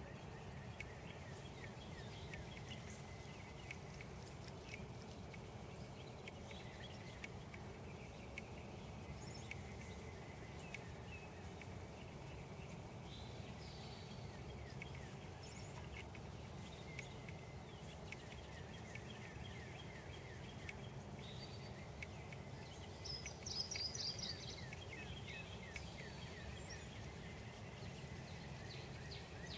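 A cat lapping water from a tub: soft ticks several times a second, in runs, over a steady outdoor background hum. Birds chirp now and then, loudest in a short burst about three-quarters of the way through.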